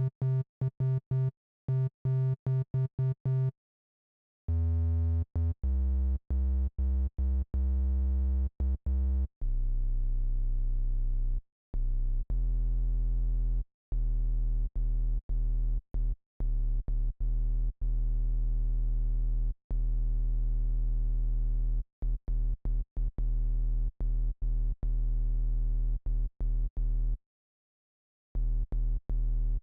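Native Instruments Massive software synthesizer playing a bass patch: many short notes retriggered one after another with dead silence between them. The first notes are brighter and higher; after about four seconds and again near ten seconds the notes drop lower, ending as a deep sub-bass tone.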